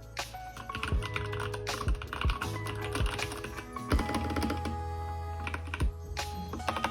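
Typing on a Keychron K2 mechanical keyboard: a run of sharp key clicks at an uneven pace, heard over background music.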